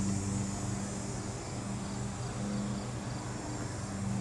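A low motor hum, like an engine running, that fades and returns every second or so, with a faint high insect buzz and a few soft chirps above it.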